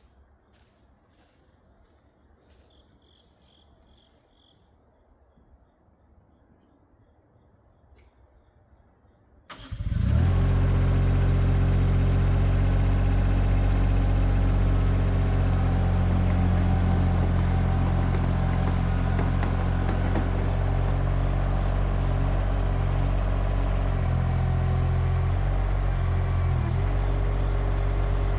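Quiet with a few faint clicks, then about ten seconds in the mini skid steer's engine comes on suddenly and runs loud and steady. Its pitch dips and wavers a few times near the end as the machine is worked.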